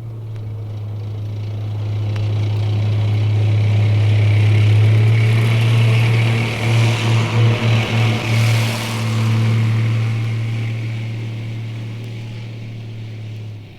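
M48 Patton tank running with a loud, steady low drone that builds to about five seconds in, wavers in a quick series of pulses around seven to eight seconds, then eases off and cuts off abruptly at the end.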